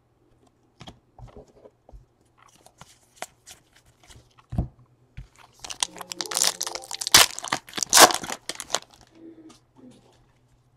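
A 2017 Panini Elite Draft Picks football card pack wrapper being crinkled and torn open. A dense crackle runs from about six to nine seconds in, after a few scattered clicks of cards being handled.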